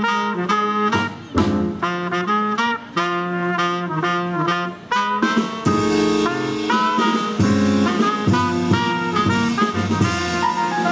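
Live small-group jazz: trumpet and tenor saxophone playing together over upright bass and drums. For the first half the horns play short phrases broken by brief gaps, then from about halfway the cymbals and bass fill in steadily beneath them.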